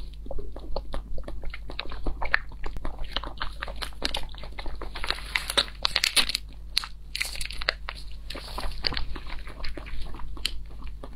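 Close-miked mouth sounds of a person sucking and chewing jelly squeezed from a stick sachet: a steady run of wet clicks and smacks.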